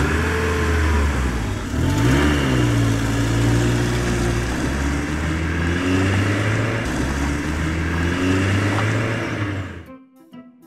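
Truck engine sound effect running and revving, rising in pitch about two seconds in, then cutting off suddenly near the end.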